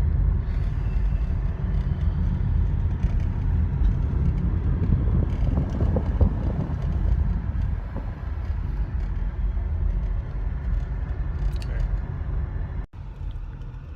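Steady low rumble of a car in motion. It cuts out for an instant near the end, then carries on a little quieter.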